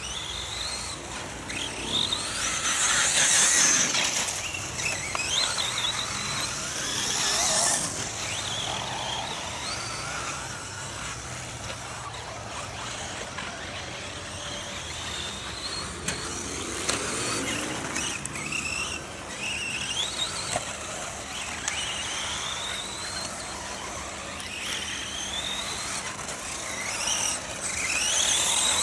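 Radio-controlled off-road buggies racing on a dirt track: a high-pitched motor whine that rises again and again as the cars accelerate, loudest when a buggy passes close, about 3 and 8 seconds in and near the end.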